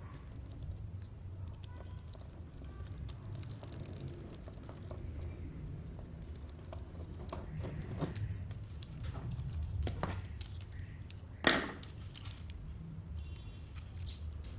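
Small clicks and taps of laser-cut wooden kit parts and a servo being handled, over a low steady hum, with one sharp louder knock about eleven and a half seconds in.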